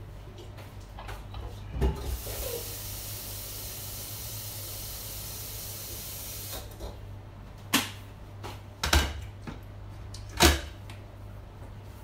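Kitchen tap running for about four seconds, then shut off abruptly, likely water drawn for boiling noodles. There is a knock just before the water starts and three sharp knocks and clatters of kitchenware after it stops, the last the loudest.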